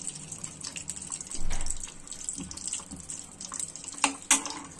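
Desi ghee melting and sizzling softly in a hot metal kadhai, a steady hiss. Near the end a steel spoon clicks twice against the pan.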